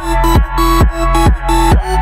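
Electronic dance music with a steady kick drum about twice a second over a deep sustained bass and held synth notes.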